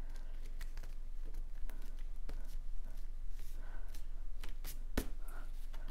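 Cardstock being pressed and handled on a cutting mat: soft paper rustling and brushing with scattered light clicks, and one sharper tap about five seconds in.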